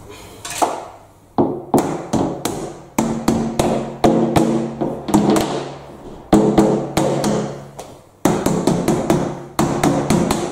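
Instrumental music: a quick, uneven run of sharp struck notes over held low tones that change every second or two.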